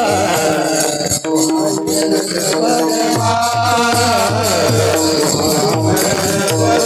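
Devotional bhajan music: a melody line carried by voice or instrument, over a held drone, a drum whose low strokes glide down in pitch at a steady beat, and jingling hand cymbals.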